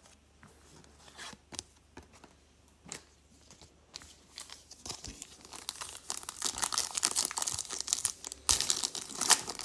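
Foil wrapper of a baseball card pack being torn open and crinkled by hand. It starts with a few light clicks and rustles, then turns into dense crackling from about halfway through, loudest near the end.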